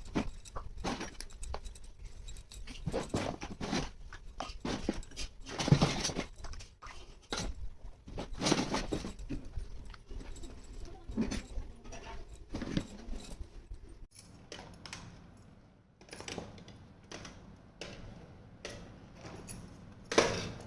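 Small plastic toy kitchen pieces being handled and unpacked: irregular clicks, taps and rustles, with a few louder knocks as pieces are set down.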